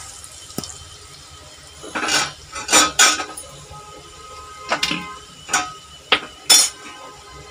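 Steel kitchen utensils clinking and clanking against metal pans and dishes, about seven irregular knocks, some leaving a short metallic ring. Under them, the faint sizzle of onions and whole spices frying in oil in the kadhai.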